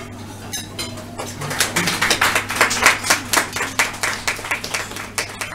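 Applause from a small audience, a patter of separate claps that builds about a second in and tapers off near the end.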